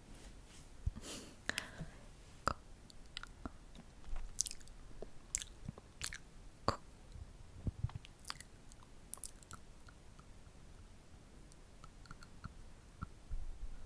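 Close-miked ASMR mouth sounds: irregular wet clicks and lip smacks with short pauses between them, thinning out after the first several seconds.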